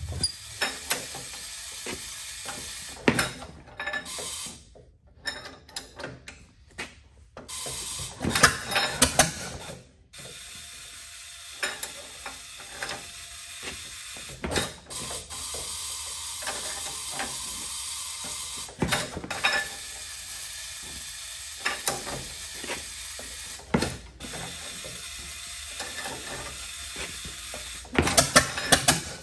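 1922 Fordson tractor's four-cylinder engine being cranked by hand at the front crank to try to start it, the crank and engine giving irregular bursts of clicking and clanking, with a denser run of clicks near the end.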